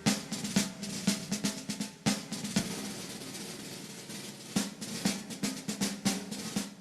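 Background music, a drum-led track with snare and bass drum hits that thin out in the middle and pick up again.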